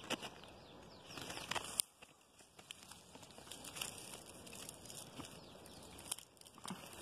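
Leaves and twigs of a tumbo vine rustling and crackling as a hand pushes through the foliage, with a sharp snap a little under two seconds in.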